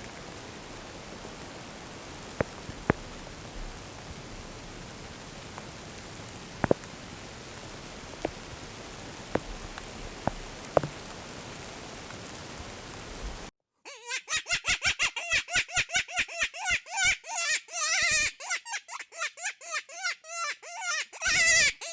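Steady rain hiss with a few sharp drip ticks. After an abrupt cut, a loud, rapid run of high, wavering yelping cries, several to the second, follows: a predator-calling distress sound or yipping coyotes.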